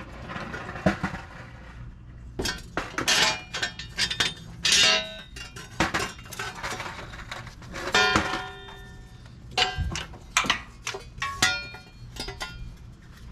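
Metal tools and car parts being handled: a string of sharp clinks and clanks, some ringing briefly like struck steel, at irregular intervals.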